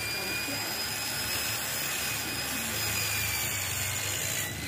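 Electric power sander running steadily with a high whine, smoothing the metal body of a sewing machine before repainting.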